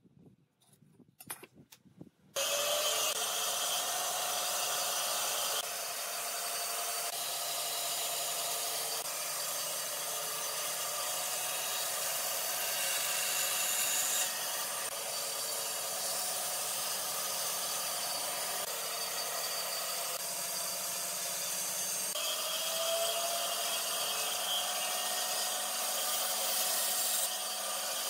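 Bench bandsaw running and cutting through pine pallet boards: a steady rasping hiss of the blade in the wood over the motor's hum. It starts suddenly about two seconds in, after a few faint taps.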